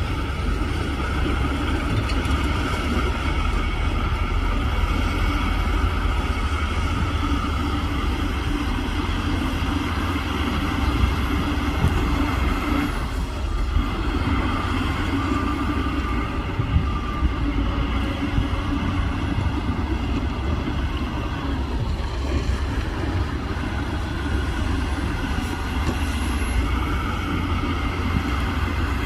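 Heavy diesel earthmoving machinery, a bulldozer or a dump truck, running steadily with a deep rumble and a few short knocks partway through.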